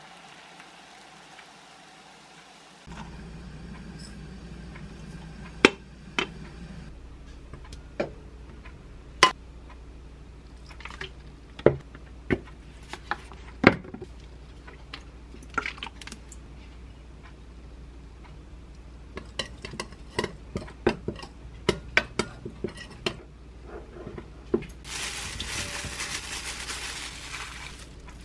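A metal spoon clinking sharply against a glass mixing bowl as seasonings are scooped in and scraped off, several separate clinks, with a run of lighter taps later. It opens with a pot of water boiling briefly, and a rustling noise comes in near the end.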